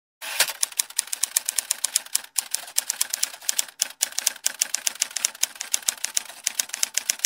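Typing sound effect: rapid, irregular typewriter-like key clicks, several a second, starting just after the opening moment. It goes with on-screen text being typed out.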